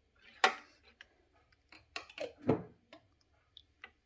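A spoon clinking and tapping as white sauce is dolloped onto lasagna sheets in a baking tray: a sharp tap about half a second in, a cluster of taps and scrapes around the middle, and a few faint ticks near the end.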